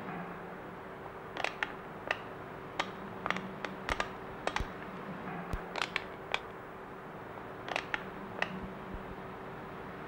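A scatter of sharp, irregular small clicks and ticks over a steady low hum.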